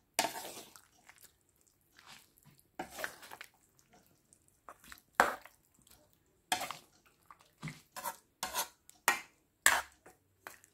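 Ladle clinking and scraping against the pot while stirring and scooping soup: irregular sharp knocks, coming closer together in the last few seconds.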